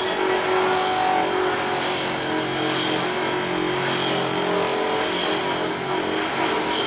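Tap and tool re-sharpening grinder running steadily: an even motor hum under a continuous grinding hiss.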